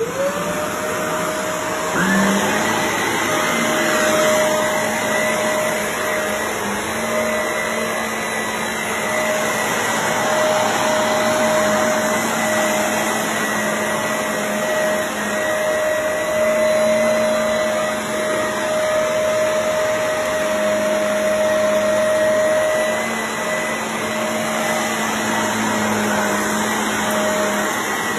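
Shark Navigator upright vacuum cleaner switching on and spinning up to speed, then running steadily while vacuuming carpet, its motor whine holding one pitch over the rush of air.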